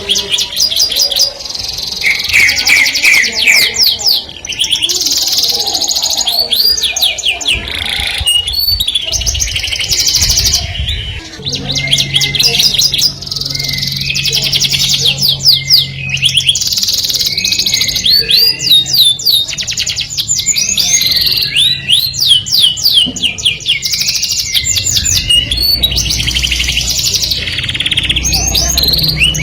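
A canary singing a long, almost unbroken song of rapid trills and fast repeated high notes, pausing only briefly between phrases.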